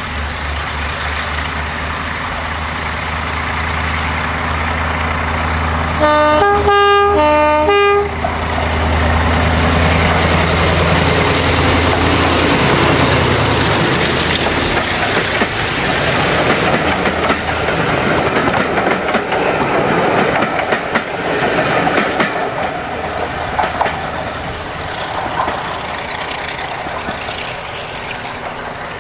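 A Hymek diesel-hydraulic locomotive with a Maybach MD870 V16 engine works hard as it pulls a passenger train away, its deep engine note building as it approaches. About six seconds in, its two-tone horn sounds in a quick run of alternating high and low blasts. The locomotive and its coaches then pass close by with a rushing roar and rail clatter that fades as they move away.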